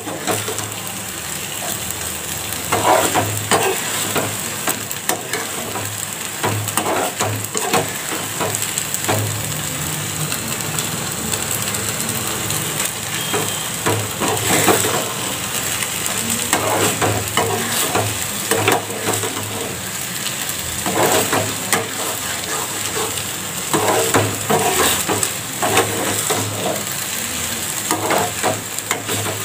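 Sevaiyan (vermicelli) sizzling in a pan on a gas stove while a spatula stirs it and scrapes against the pan in frequent short strokes. The last of the cooking water is being cooked off.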